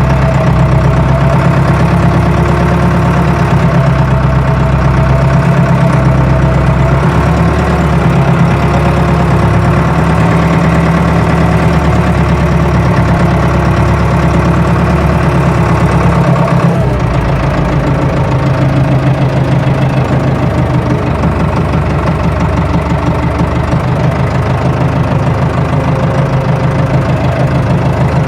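Tractor engine running steadily under a low, even drone, its sound changing abruptly about seventeen seconds in.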